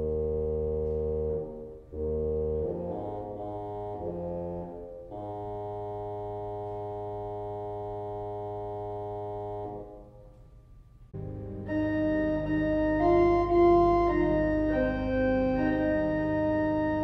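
Foley-Baker pipe organ playing a slow melody of held notes on its Basson (bassoon) reed stop. After a short quiet gap about eleven seconds in, it comes back louder and fuller, with several sustained notes over a held bass.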